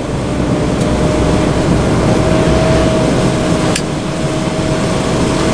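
Steady in-cab drive noise of a DAF XF truck under way on the motorway: a low engine and road rumble with a thin steady whine above it. A single sharp click sounds about four seconds in.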